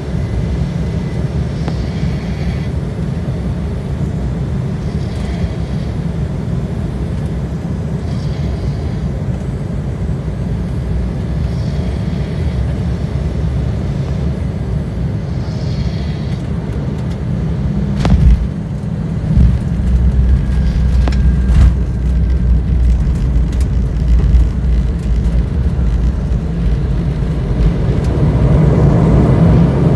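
Cabin noise of an Embraer ERJ-175 landing: a steady rumble of engines and airflow on final approach, then about 18 seconds in a thump as the wheels touch down, followed by a heavier, rougher rumble of the wheels rolling down the runway that grows louder near the end.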